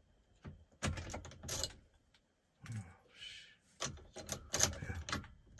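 Irregular clicks and knocks in several quick clusters, like small objects being handled, with a brief rustle about three seconds in.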